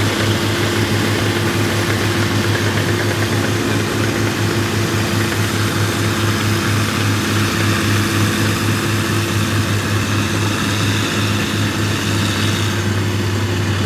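Rice combine harvester engine running steadily, a constant low drone that holds the same speed throughout.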